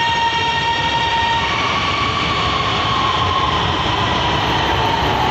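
Lahore Orange Line electric metro train running alongside the platform: a steady rumble with the whine of its electric drive. The whine is a held tone that starts gliding in pitch about a second and a half in, as the train changes speed.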